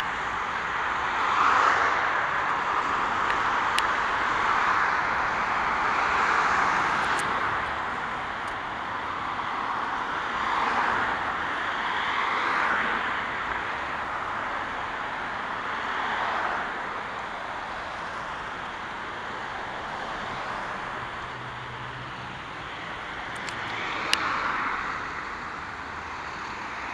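Road traffic: cars passing one after another on a multi-lane street, their tyre and engine noise swelling and fading every few seconds.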